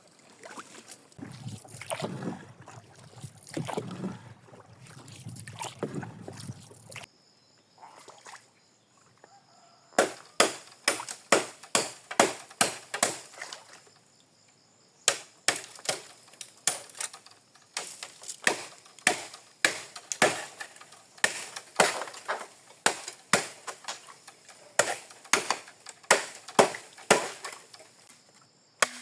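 Water splashing and sloshing for several seconds, then after a short pause a steady series of sharp chopping strikes, about two a second with a few brief breaks.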